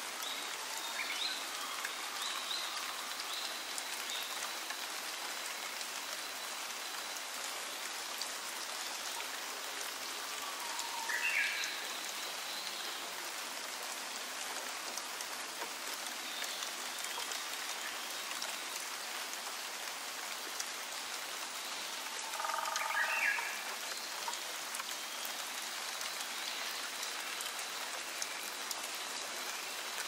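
Steady rain falling on forest foliage, with scattered individual drops ticking through it. Faint high bird chirps come near the start. An animal gives two short calls, one about a third of the way through and a louder one about three-quarters through.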